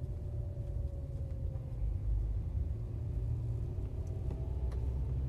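Car driving slowly, heard from inside the cabin: a steady low rumble of engine and road noise, with a faint hum above it.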